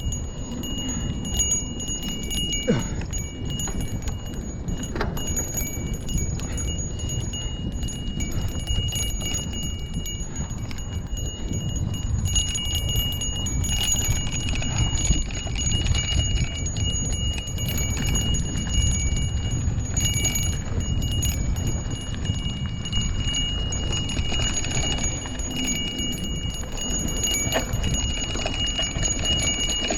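Handlebar bell on a Lime rental ringing over and over in sustained stretches, with a short break early on, over low wind rumble on the microphone while riding.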